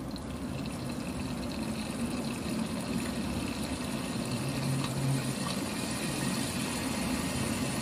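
Curry leaves, mustard seeds, cumin and dried red chillies sizzling in hot oil in an aluminium pressure cooker: a steady frying hiss with a few faint pops, as the tempering fries.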